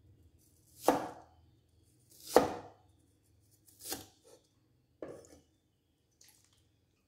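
Cleaver chopping through onion onto a wooden chopping board: four chops about a second and a half apart, the first two loudest, then a faint knock near the end.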